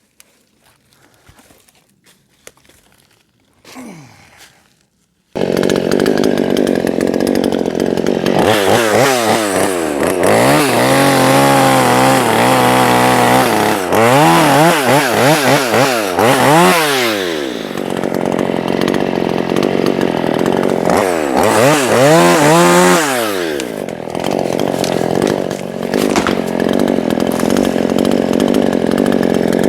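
A small two-stroke chainsaw comes in abruptly, loud, about five seconds in after some faint small noises. Its engine speed rises and falls again and again as it is throttled and worked, then it runs more steadily near the end.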